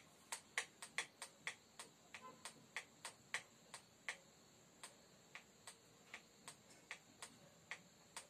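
A quick series of light, sharp clicks, about three a second at first and slowing to about two a second toward the end.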